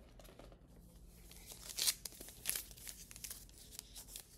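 Packaging wrap rustling and crinkling in irregular bursts as the headphones are handled and unwrapped, loudest about two seconds in.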